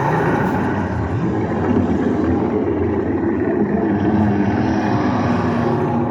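A loud, steady motor running.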